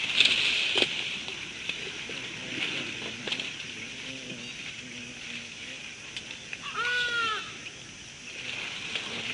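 Outdoor bush ambience: a steady high-pitched hiss, a few scattered snaps, and about seven seconds in one short call that rises and falls in pitch.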